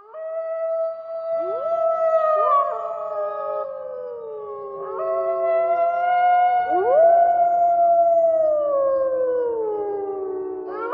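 A wolf pack howling in chorus: several long howls overlap, with new voices sliding up to join about a second and a half in and again around five and seven seconds. The howls sink slowly in pitch toward the end.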